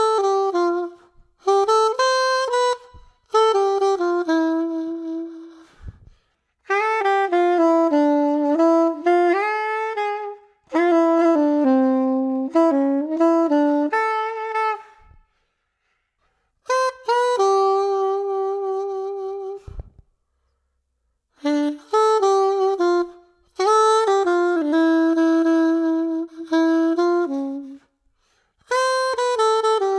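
Solo jazz phrases played on a Yanagisawa S991 soprano saxophone, then the same kind of phrases on a Yamaha Venova, a plastic reed-blown casual wind instrument. The melody comes in short runs of notes with brief pauses between them.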